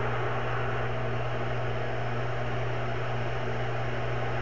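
Steady stadium crowd noise with no distinct events, under a constant low electrical hum.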